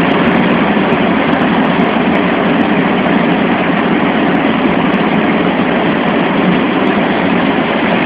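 Steady loud noise of a Boeing C-17 Globemaster III in flight, heard from inside its cargo hold: the drone of its four turbofan engines mixed with airflow noise.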